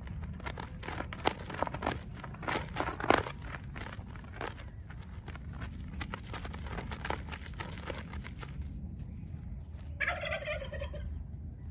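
Horse-training flag on a stick flapping and snapping as it is waved, in a quick run of sharp flaps loudest in the first few seconds, dying away after about nine seconds. A short warbling call follows about ten seconds in.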